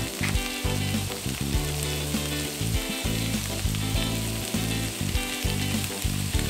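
Corn and shallots sizzling in pork fat in a frying pan, sautéing, with background music underneath.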